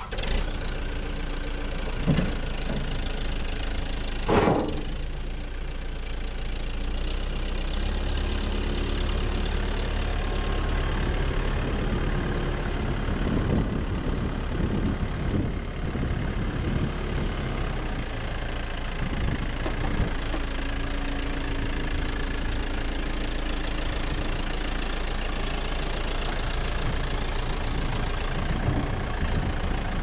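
A 2005 New Holland backhoe loader's diesel engine starts and runs, with two sharp clunks in the first few seconds. It then runs steadily at a fairly constant level while the machine drives and works its loader.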